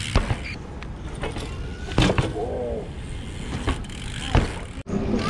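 BMX bikes riding and jumping on a concrete plaza: a steady low rumble of tyres rolling, broken by several sharp knocks of wheels landing or hitting the pavement, the loudest about two seconds in. A short voice exclamation follows that knock.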